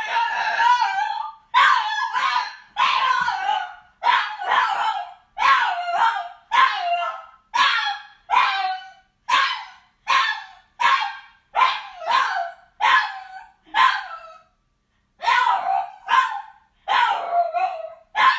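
A frustrated dog barking and crying over and over in high, whining barks, roughly one a second, each dropping in pitch at its end, with a brief pause about fourteen seconds in.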